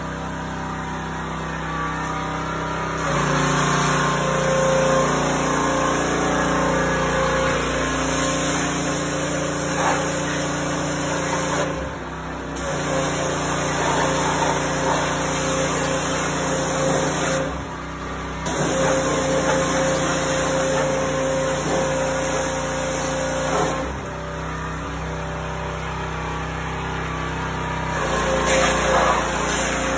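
Pressure washer running, its spray hissing against a car's underbody over a steady motor hum. The spray stops briefly about twelve and eighteen seconds in, then pauses for about four seconds before starting again.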